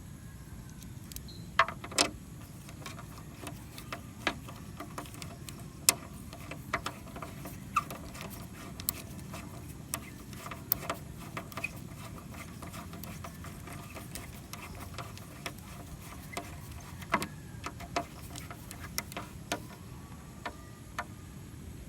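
Irregular small metallic clicks and taps of a hand tool and metal bolts as body bolts are screwed into a motorcycle's fairing, with a few sharper knocks scattered through.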